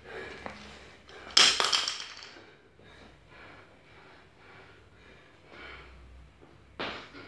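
Jump-rope workout coming to a stop: one loud slap or thud about a second and a half in, ringing briefly in the bare garage, then only faint knocks, with another sharp knock near the end.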